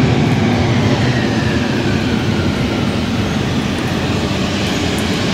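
Airbus A320 jet airliner rolling out after landing on a wet runway: a loud, steady rush of jet engine noise and tyre spray, with a faint whine falling in pitch about two seconds in.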